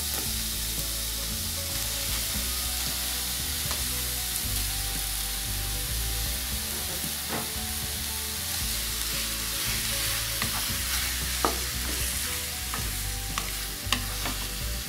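Boneless chicken and chopped tomatoes sizzling in a nonstick kadhai, with a steady frying hiss. A wooden spatula stirring them scrapes and knocks against the pan now and then, mostly in the second half.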